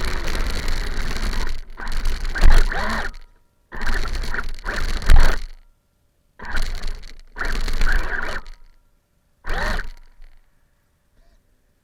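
RC car heard through its onboard FPV camera: five rough, noisy bursts of one to two seconds each, with the sound cutting out completely between them and dying away after about ten seconds.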